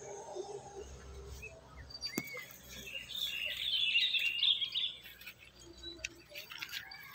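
Small birds chirping and twittering, loudest in the middle, with one sharp click about two seconds in.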